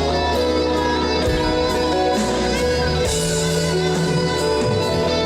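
Live band playing the instrumental introduction of a ballad: guitar over steady held chords and a sustained bass, with no vocal yet.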